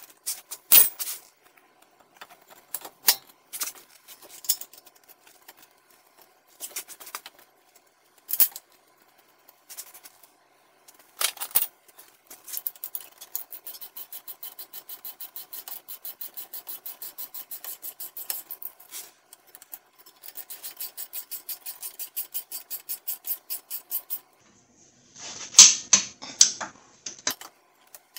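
Hand ratchet wrench clicking rapidly as bolts are run in on a car's front brake assembly: a long, even run of ratchet clicks, a short pause, then a second run. Scattered metallic clinks come before it, and a louder clatter of metal comes near the end.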